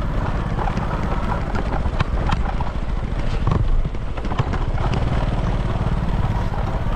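Small motorbike engine running steadily at low speed on a rough dirt track, with scattered knocks and rattles from the bike jolting over the bumps.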